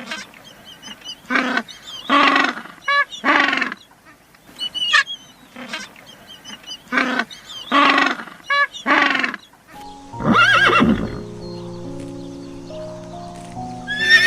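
A short run of animal calls that plays twice over, then a horse whinnying a little after the middle. Music of long held notes starts under the whinny.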